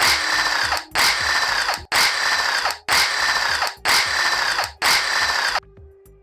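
Power tool run in six short bursts of just under a second each, about one a second, stopping near the end: undoing the bolts of a Toyota 3ZZ engine's bottom end during teardown.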